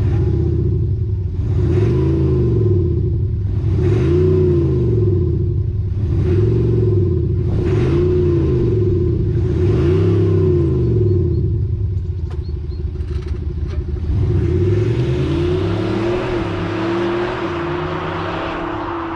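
BMW Alpina XD3 BiTurbo's six-cylinder diesel engine being revved while stationary, rising and falling in about five long blips two seconds apart. Several shorter, quicker blips follow after about fifteen seconds.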